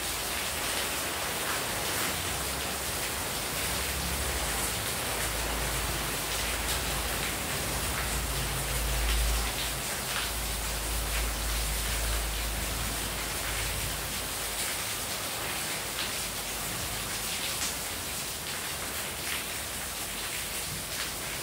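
Heavy rain falling steadily, with water pouring off the roof edge and splashing onto the tiled courtyard floor. A low rumble swells and fades through the middle.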